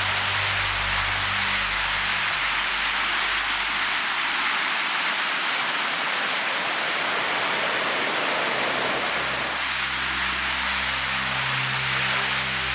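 Steady rushing noise of a swollen, fast-flowing river current. Low, held background-music notes sound under it, fading out after about two seconds and coming back about ten seconds in.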